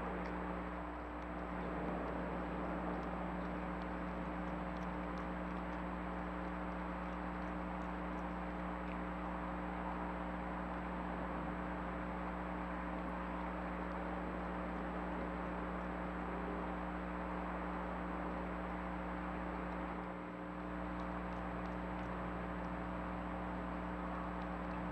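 Steady hiss with a constant electrical hum, the self-noise of a trail camera's microphone, dipping briefly twice; no distinct animal sounds stand out.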